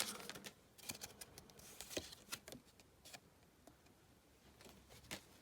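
Faint, scattered clicks and light rustles of Pokémon trading cards being handled and slid over one another.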